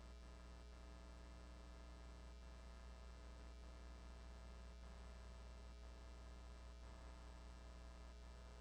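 Near silence: a faint steady low hum on an otherwise empty audio feed.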